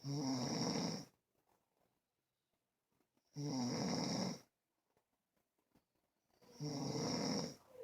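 Snoring: three snores about three seconds apart, each lasting about a second.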